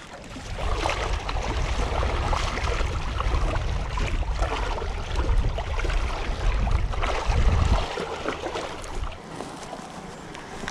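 Wind rushing over the microphone with water noise from the shore, loudest for the first eight seconds or so and then easing off.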